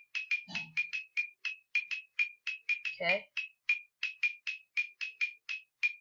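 Rapid, uneven series of short, bright computer dings, all at the same pitch and about three to four a second, from a web page's animation as checker pieces pop onto the board one by one. Two brief low sounds come in about half a second in and again at about three seconds.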